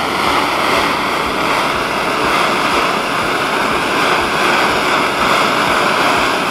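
Handheld blowtorch flame hissing steadily while it heats a copper-coated zinc penny.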